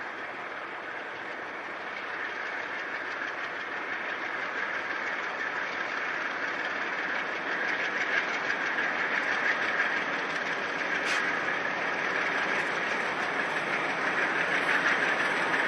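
Conrail freight train led by two diesel locomotives approaching, its engine and wheel-on-rail noise growing steadily louder, with a few faint clicks in the second half.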